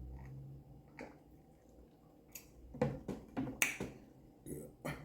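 Close-up mouth sounds of eating: a run of wet lip smacks and chewing clicks, bunched in the second half.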